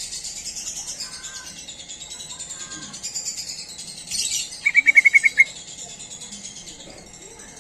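Yellow-vented bulbul (trucukan) calling. A quick burst of about eight bubbly notes comes a bit under five seconds in and is the loudest sound, over a constant high chirping.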